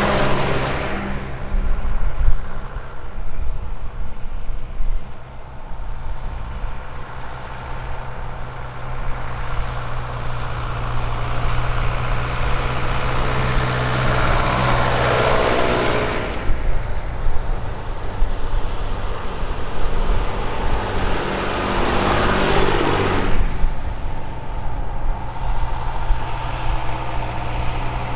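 Vintage tractor engines running as a line of classic tractors drives past one after another, each one louder as it nears and falling in pitch as it goes by. One passes right at the start, another about halfway through and a third about two-thirds through, with the next one's engine chugging steadily as it approaches.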